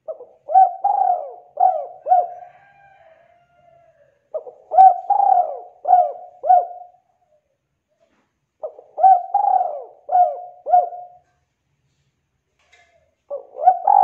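Spotted dove cooing: three phrases of several quick notes each, a couple of seconds apart, and a fourth phrase starting near the end.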